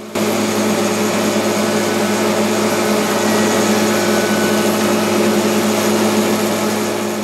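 Spindle moulder (wood shaper) cutting a sticking profile along solid maple stock fed through by a power feeder: a loud, steady machining noise over a constant motor hum. It starts abruptly just after the beginning.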